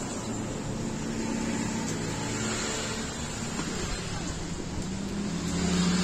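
National F560A1 industrial ceiling fan running, with a steady low hum under an even rush of air. The hum grows louder near the end.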